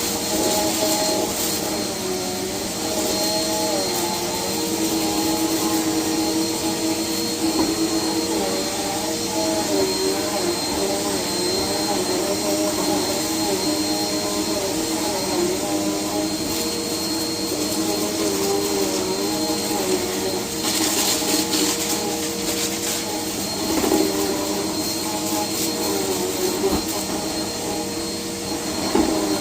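Household vacuum cleaner running steadily, its motor tone wavering, with brief louder hisses about two-thirds of the way through.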